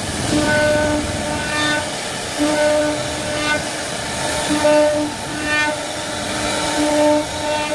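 CNC wood router's spindle running and cutting wood: a steady pitched whine over a cutting hiss, the whine dropping in and out every second or so as the cutter works.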